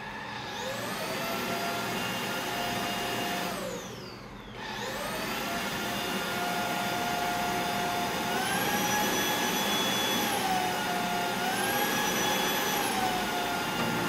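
Novita V21 Lite cordless stick vacuum's motor spinning up with a rising whine, winding down about four seconds in, then starting up again. Its pitch steps up and back down twice as the power mode is switched.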